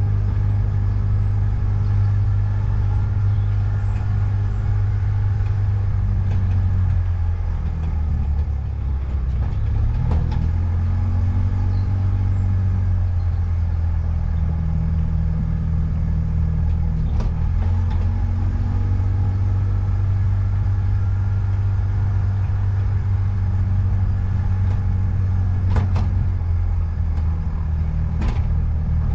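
A car driving along a road, giving a steady low drone that dips in pitch about eight seconds in and then rises again as it picks up speed. A few sharp knocks come later on, two of them near the end.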